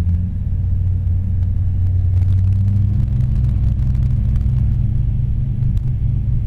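Rotax 912iS fuel-injected flat-four aircraft engine and propeller running at low taxi power, a steady low drone.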